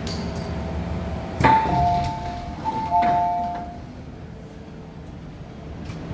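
MTR M-Train door chime: a sharp clunk, then a two-note high-low chime sounding twice, over the low rumble of the train standing at the platform.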